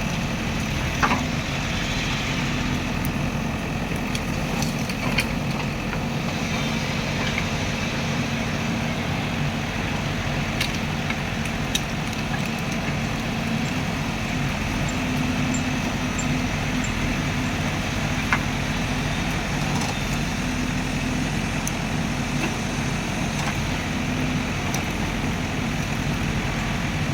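A JCB machine's diesel engine running steadily at an even speed, with a few short sharp clicks along the way.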